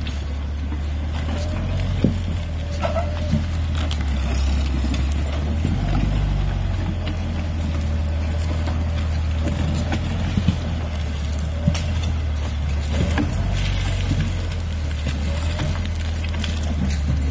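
Forestry tractor's diesel engine running steadily under load as it drags two heavy logs over rough ground, with a few sharp knocks and cracks.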